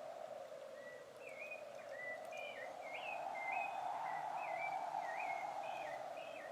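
A songbird singing a run of about ten short whistled notes, each bending up or down in pitch, starting about a second in, over a steady rush of flowing water.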